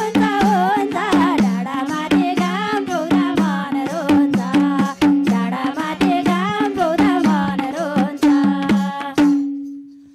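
Nepali dohori folk music between verses: a madal drum plays a quick, steady rhythm under a harmonium melody, with tambourine jingles. About nine seconds in the playing stops, and one held note fades out.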